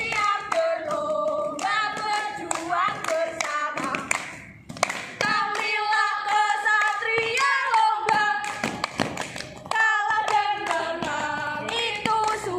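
Girls' voices singing a tune together, with hand claps keeping time.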